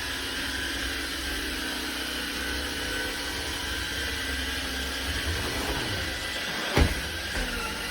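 Craftsman V20 cordless stick vacuum running steadily with a whine, and a single knock near the end.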